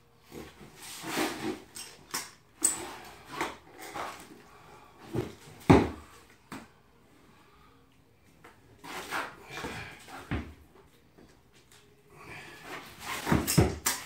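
Hand trowel scraping and smoothing wet floor-leveling compound across the subfloor in short, irregular strokes, with a lull about halfway through.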